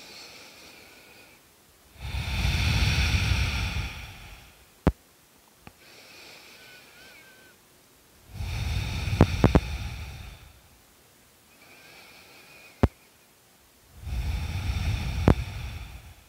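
Slow, deep human breathing while holding a yoga resting pose: three long, loud rushes of breath about six seconds apart, with fainter breaths between them. A few sharp clicks are also heard.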